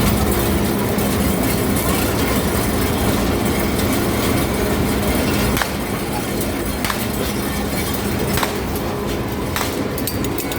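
Ride train running along its track: a steady rumble of wheels and running gear, with a low hum that drops out about halfway through. A few sharp clicks follow.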